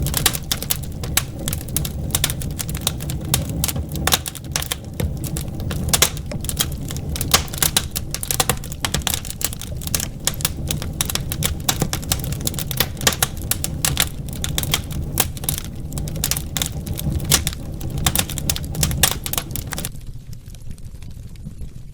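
Wood fire crackling and popping in a fireplace: dense, irregular sharp snaps over a steady low rumble of the flames. The crackling cuts off abruptly near the end, leaving only the low rumble.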